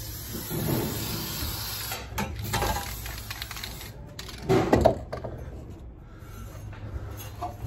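Aerosol spray can hissing in two long bursts that cut off sharply about three and a half seconds in, followed by a few handling knocks, the loudest about four and a half seconds in, and then soft rustling of fiberglass insulation.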